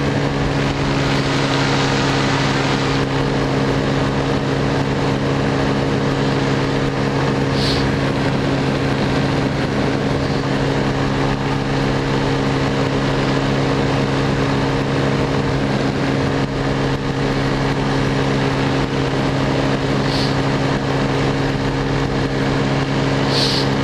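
Small aircraft engine running at a steady, unchanging pitch in flight, over a constant rush of wind. Three brief hisses cut through, one about a third of the way in and two near the end.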